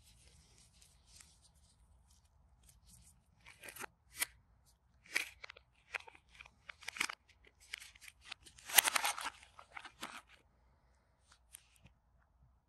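Rubber-gloved hands handling a coiled charging cable and a cardboard accessory tray: a run of crinkly rustles and light clicks, loudest about nine seconds in.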